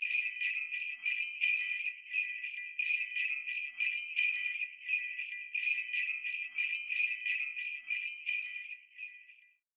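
Jingle bells shaken in a steady rhythm, about two to three shakes a second, fading out near the end.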